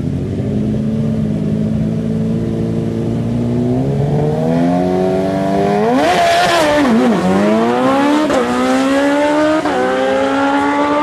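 Drag-racing sportbike engine holding revs on the starting line, then launching hard about six seconds in. It pulls away down the strip, the engine note climbing and dropping sharply at each of three quick upshifts.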